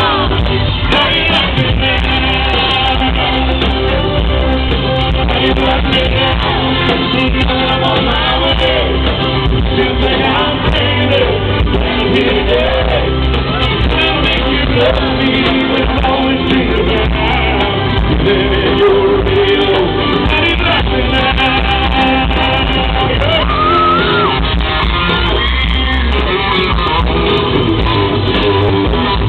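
Live country band playing loudly through an arena sound system, with a male singer's lead vocal over guitars and drums, and shouts from the crowd.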